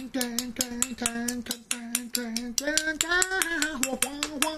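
A man singing an improvised melody in long held notes, keeping time by tapping a plastic spoon against a ceramic yunomi teacup: quick, even clicks, several a second. His voice rises in pitch about three seconds in.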